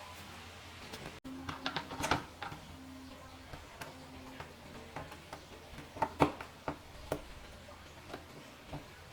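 Scattered small clicks and taps of plastic laptop parts and tools being handled, irregular, with a few louder knocks about two and six seconds in, over a low steady hum.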